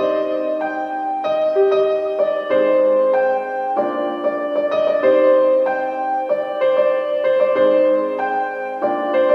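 Background music: a gentle piano melody with notes changing about twice a second.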